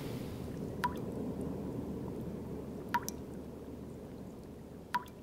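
Water drops dripping: three single plinks, about two seconds apart, over a low rumble that slowly fades out.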